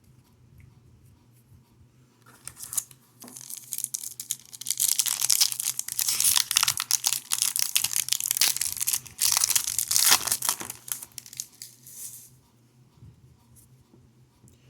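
Plastic-foil wrapper of a hockey card pack being torn open and crinkled by hand, a run of dense crackling and tearing that starts about two seconds in and stops about three seconds before the end.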